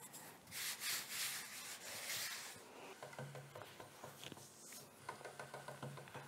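Soft brushing and rubbing of hands spreading flour over pasta dough on a wooden board. About three seconds in, it gives way to faint rapid ticking and a low hum from a hand-cranked pasta machine's cutter rollers as fettuccine feed out.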